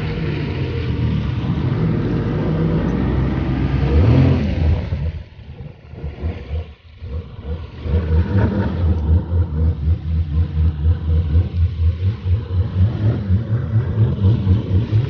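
Personal watercraft (jet ski) engine running under way, rising in pitch as it is throttled up about four seconds in. It then falls away briefly and picks up again with a regular pulsing.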